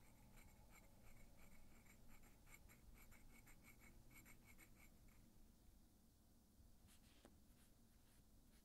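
Faint, quick scraping strokes of a metal cuticle pusher pushing back the cuticle on a bare natural nail, about three strokes a second, stopping about five seconds in. A faint click or two near the end.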